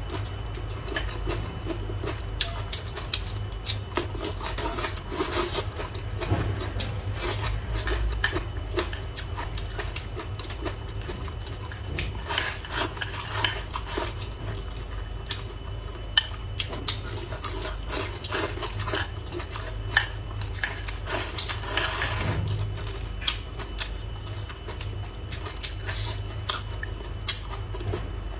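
Eating sounds: utensils clicking and tapping against dishes and bowls at irregular intervals, over a steady low hum.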